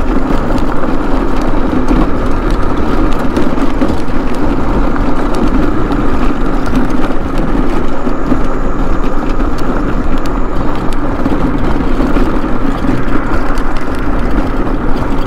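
Mobility scooter running along a rough, worn paved road: a continuous rumble with a steady hum, and many small rattles and knocks as the scooter jolts over the bumps.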